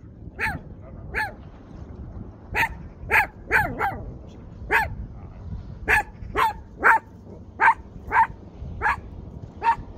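A dog barking over and over: about fourteen short barks at an uneven pace, one every half second to a second.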